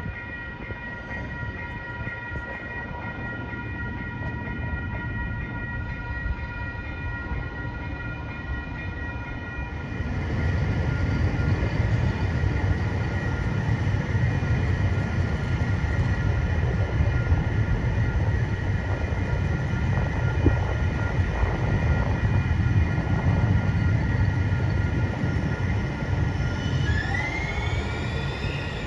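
Grade crossing signal bell ringing steadily as a light rail trolley approaches; about ten seconds in, the louder low rumble of the trolley passing close by joins it. Near the end the trolley's wheels give a brief rising squeal.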